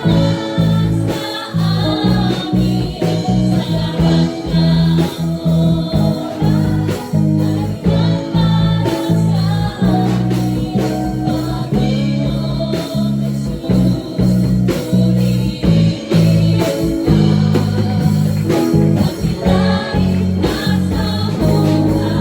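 Gospel praise and worship music: a song with singing over guitar and a steady beat.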